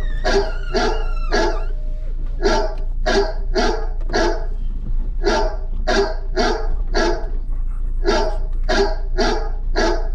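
A dog barking over and over in short runs of sharp barks, about two a second, over a steady low hum.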